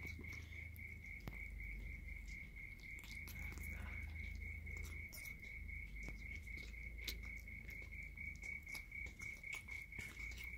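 Kittens eating wet cat food from a foil tray, with small, irregular wet clicks of chewing and licking. Under it runs a steady, high chirp that pulses evenly several times a second.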